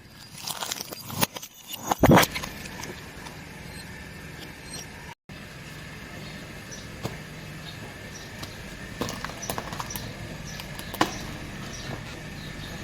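A car tyre rolling over and crushing objects: a run of cracks and crunches ending in a loud burst about two seconds in, then a few faint scattered crackles over a steady hum.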